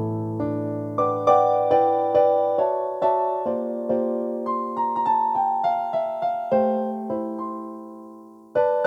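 Yamaha NP-11 portable digital keyboard playing a slow melody over held chords, the struck notes fading after each attack. A final chord is struck near the end.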